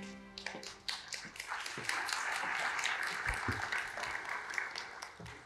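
Audience applauding, a dense patter of many hands that swells about a second and a half in and thins out near the end, with a couple of low thumps in the middle. The last held notes of intro music fade out in the first second.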